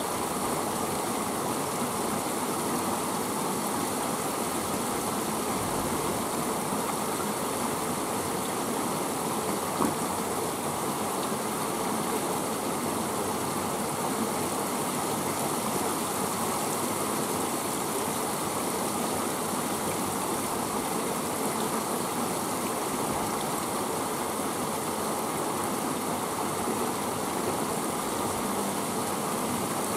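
Steady rush of flowing river water, even and unbroken, with one brief tap just under ten seconds in.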